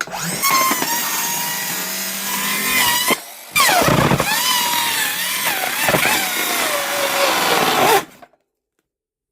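A blade cutting open a cardboard box in two long strokes, a scraping, squeaky rasp with wavering squeals. It stops abruptly about eight seconds in.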